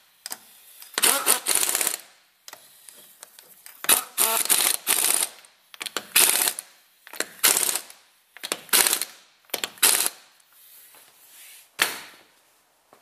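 Impact wrench hammering wheel nuts tight, in about seven short bursts of rapid rattling with pauses between them as it moves from nut to nut.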